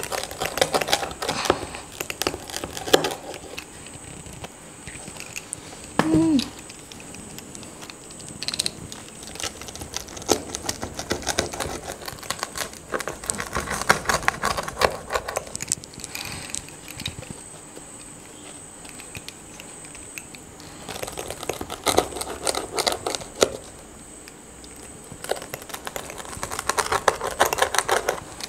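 Wheel pizza cutter rolling through a homemade pizza's crust against a wooden board: crunching, crackling cuts in several bouts with pauses between.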